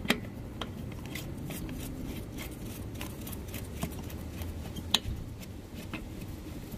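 Small clicks and taps from the Mazda CX-9's fuel-door lock plunger, a black plastic part, as it is worked back into its housing by hand. There is a sharp click just after the start and a louder one about five seconds in.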